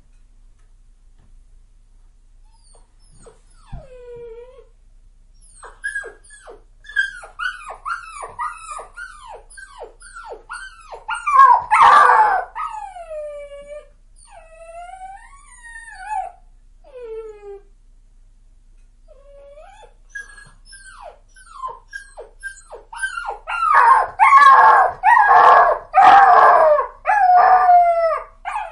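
A dog whining and crying: a long run of high, falling whimpers and yelps in two spells with a short pause between them, loudest near the middle and toward the end.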